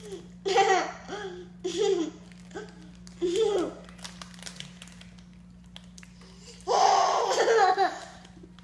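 Baby babbling and laughing: about five short high-pitched vocal bursts, a pause, then one long, loud laugh about seven seconds in.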